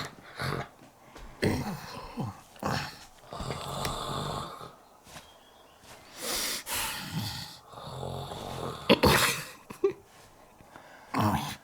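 Exaggerated comic snoring for a puppet: a run of irregular snores, snorts and wheezes, some low and pitched, others breathy and hissing.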